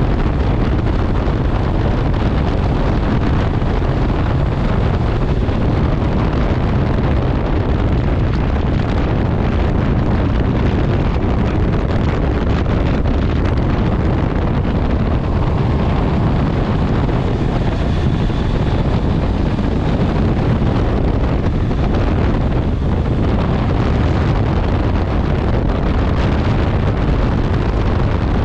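Motorcycle riding at road speed: steady wind rush on the microphone over the running inline-four engine of a Honda CB650R.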